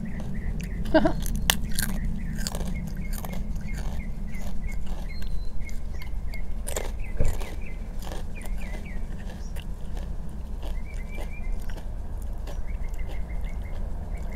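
Close-up crunching and chewing of sea salt potato chips, with sharp bites loudest about a second in and again around seven seconds, and small birds chirping faintly in the background.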